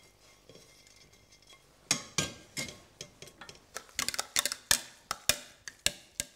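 Metal potato masher knocking and clinking against a stainless steel pot while mixing bacon cubes into sauerkraut mash: a string of sharp, irregular knocks starting about two seconds in.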